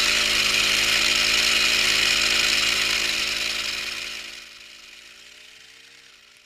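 Portable water-cooled rock core drill running steadily as its bit grinds into rock, a motor drone with a dense grinding hiss. The sound fades out from about four seconds in.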